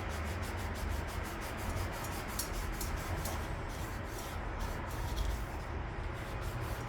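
Rag wiping over a primed outboard motor hood, rubbing in quick repeated strokes.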